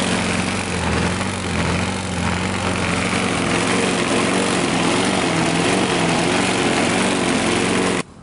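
Small single-cylinder four-stroke lawn mower engine running steadily at a constant speed, fed on gasoline vapor drawn from a vaporizing jug instead of liquid fuel. The sound cuts off abruptly near the end.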